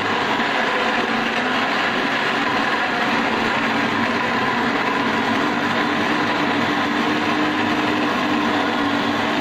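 Electric National juicer-blender motor running steadily at speed, blending mango pieces with condensed milk and yogurt into a thick mixture.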